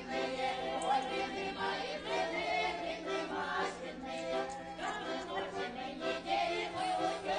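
Background music with choir-like singing.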